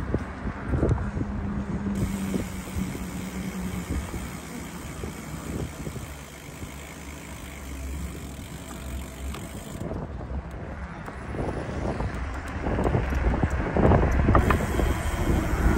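Bicycle freewheel hub ticking as the bike coasts, over a low rumble of tyres on the road. The rumble and clicking grow louder over the last few seconds.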